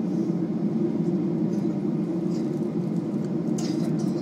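Steady cabin noise of a Boeing 737-800 taking off: its CFM56 turbofan engines and the rush of air over the fuselage, heard from inside the cabin. A few brief faint rustles sound over it, the clearest shortly before the end.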